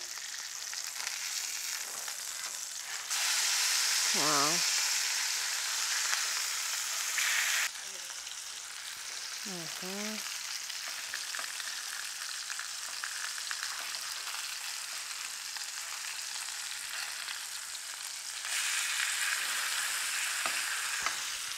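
Fish fillets sizzling as they fry in margarine and a little oil in a frying pan, with a spatula scraping and turning them. The sizzle gets louder for a few seconds about three seconds in and again near the end.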